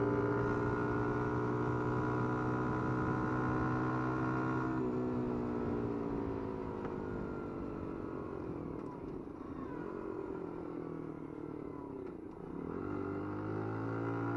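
A 50cc motorcycle engine pulling at steady high revs. About five seconds in the throttle closes and the revs fall away over several seconds, then pick up again near the end as it accelerates back to the same steady pitch.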